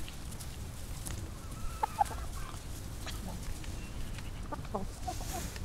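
A hen clucking in short low notes, a couple about two seconds in and a quick run of them near the end, over a steady low rumble.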